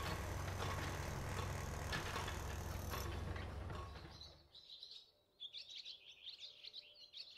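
Steady low hum with faint rustling, like the ambience of a large indoor shop heard through a phone microphone. It cuts off abruptly about four and a half seconds in, and faint, rapid high chirping follows.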